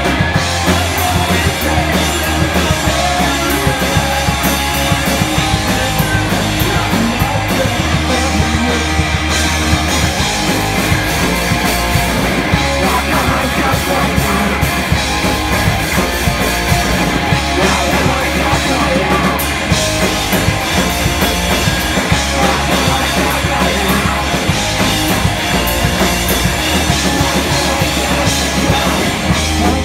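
A live punk rock band playing loudly and without a break: two electric guitars, a bass guitar and a drum kit, with singing.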